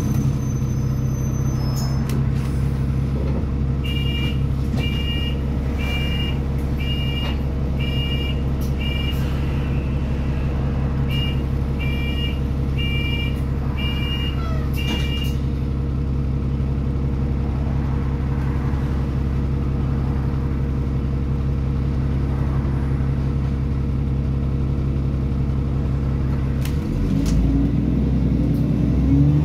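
A bus engine idling steadily, heard from inside the saloon. From about four seconds in a two-tone electronic beep repeats about once a second, pausing briefly once and stopping about fifteen seconds in; near the end the engine revs up as the bus pulls away.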